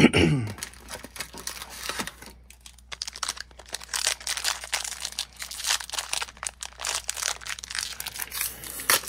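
Foil trading-card pack wrapper crinkling and tearing as it is opened, a dense irregular run of crackles. A brief falling tone at the very start is the loudest moment.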